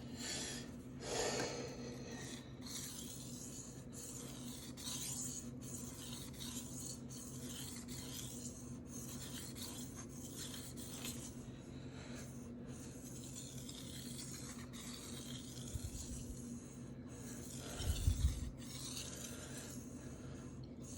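Knife blade being stroked back and forth across a Shapton Rockstar 1000 water stone, a rasping scrape with a short break about once a second. A couple of low bumps come near the end.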